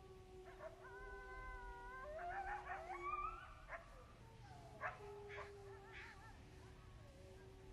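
A pack of wolves howling together: several long howls overlap at different pitches. Some calls rise in pitch about two to three seconds in, and short yips break in through the second half.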